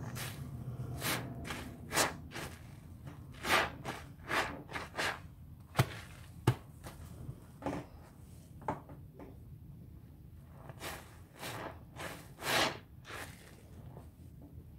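Sponges squeezed and swished through a sink of Ajax dish-soap suds: irregular wet squelches and sloshes, with two sharp knocks close together about six seconds in.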